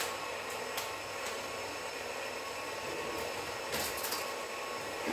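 Small food processor running steadily, its motor mixing a fritter batter of flour, egg and oil on its own. A few brief clicks about a second in and near the end.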